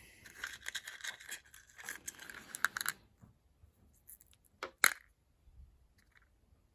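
Handling noise of small cut opal stones: about three seconds of rustling and scraping with many small clicks, then a pair of sharp hard clicks a little under five seconds in, like a stone being set down.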